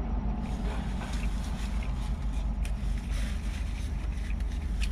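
Steady low hum inside a parked car's cabin, with faint clicks of chewing and the rustle of a paper napkin being handled.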